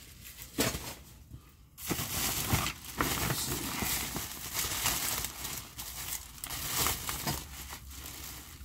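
Black plastic trash bag crinkling and rustling as hands rummage through it, starting about two seconds in and continuing with many small crackles.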